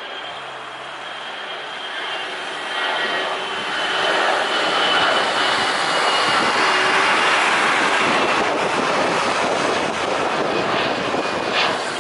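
Airbus A320-200 airliner climbing out after takeoff, its jet engines at takeoff thrust: a broad rushing roar with a thin steady whine, growing louder over the first few seconds and easing slightly near the end.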